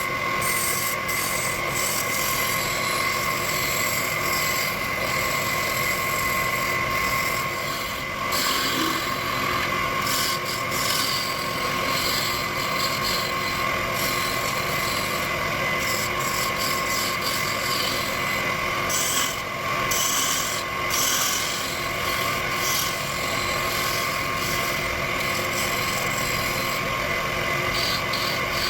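Wood lathe running with a steady high whine while a tool or abrasive rubs against the spinning wood.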